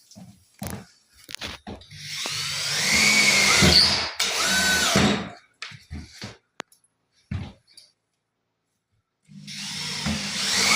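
Power drill-driver driving self-tapping screws into a floor sheet: one run of about three and a half seconds, then a second starting near the end, with knocks and handling clicks in between.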